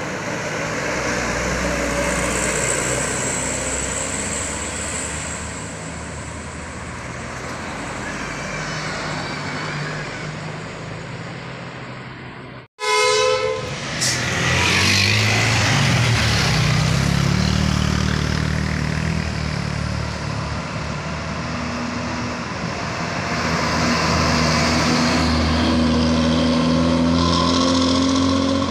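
Heavy diesel trucks passing close by. Just before the midpoint the sound cuts out for an instant, then a loud truck horn sounds for about a second as a tanker truck goes by; near the end an engine's note rises as it speeds up.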